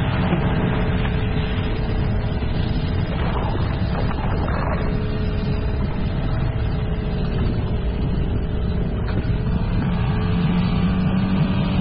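Small sailboat's outboard motor running steadily at a constant speed, a low rumble with a steady hum.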